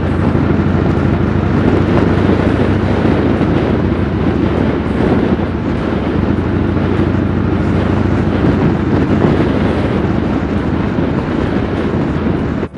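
Harley-Davidson V-twin motorcycle engine running steadily at cruising speed, with wind rushing over the microphone.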